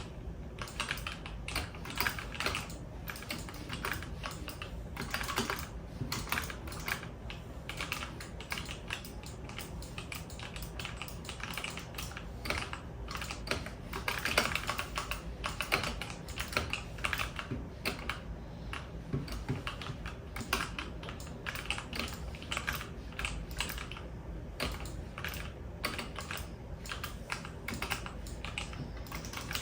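Computer keyboard being typed on continuously, with quick irregular keystroke clicks.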